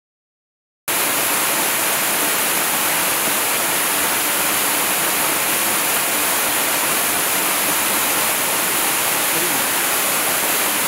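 Waterfall: a steady rush of falling water that cuts in suddenly about a second in, after silence.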